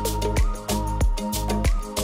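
Background music with a steady beat, heavy bass and drums.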